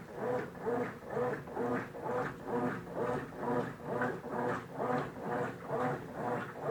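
Consul Facilite 9 kg top-loading washing machine agitating its load in the wash phase: the motor drives the agitator back and forth at about two strokes a second, each stroke a rising-and-falling whine with water sloshing.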